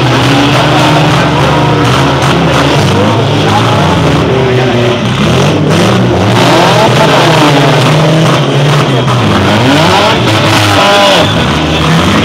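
Several compact demolition derby cars' engines running loud, each revving hard over and over, so their pitches keep rising and falling on top of one another.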